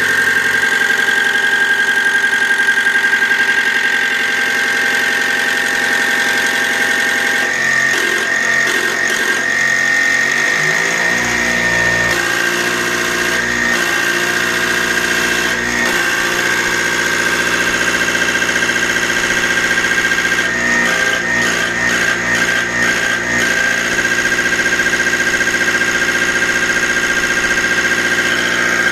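Diesel injection pump test bench driving a distributor-type injection pump: a steady machine whine. The running note shifts about eleven seconds in, and short runs of ticking come twice, before that shift and again about two-thirds of the way through.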